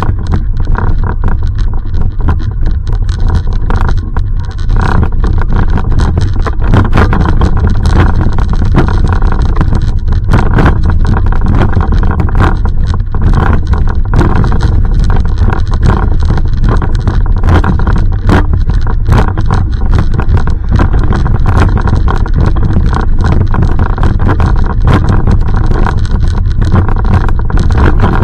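Loud, steady low rumble with frequent crackling clicks all through: wind and rubbing noise on a body-worn camera's microphone while walking, over city street traffic.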